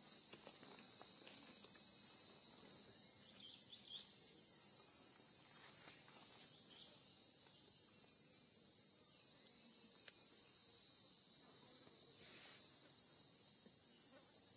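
Steady high-pitched chorus of forest insects, an unbroken shrill drone, with a few faint clicks.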